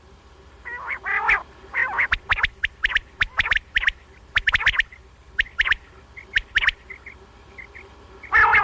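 Quail calling: a run of short, sharp, repeated calls, with a few harsher, raspier bursts mixed in about a second in and near the end.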